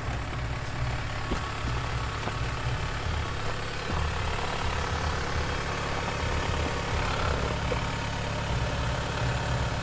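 2024 Toyota Tacoma pickup idling steadily, a low, even engine hum.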